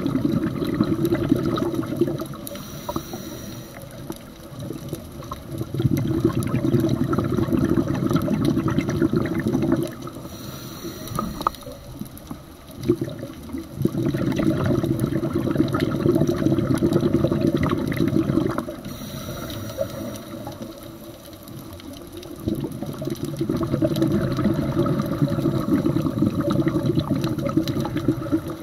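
Scuba breathing through a regulator underwater: a short hissing inhale, then a long rush of exhaled bubbles lasting a few seconds, repeating about every eight to nine seconds.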